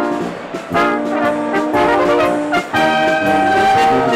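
Brass band playing, trumpets and trombones holding sustained chords with short breaks between phrases.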